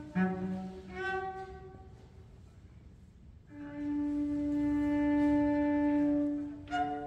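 Solo cello playing a contemporary piece: two short notes that fade away, a pause, then one long held bowed note of about three seconds, and a brief note at the end.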